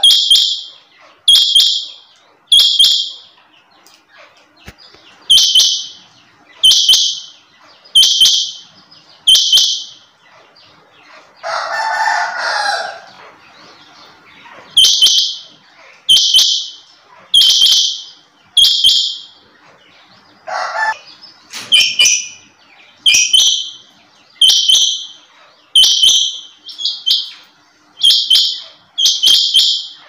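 Caged rain quail (chinga) calling: a loud, high, short call repeated about every second and a half, coming faster and in doubled notes in the last third. A longer, lower sound lasting about two seconds comes near the middle.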